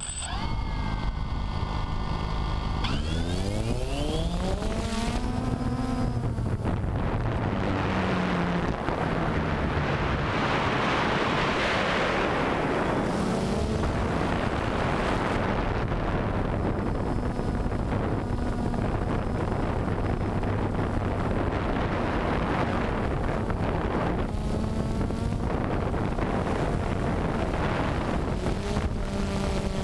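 Multirotor drone's electric motors and propellers spinning up for takeoff, a whine rising in pitch over the first few seconds, then a steady buzz in flight whose pitch wavers as it manoeuvres. Wind rushes on the microphone, strongest around ten seconds in.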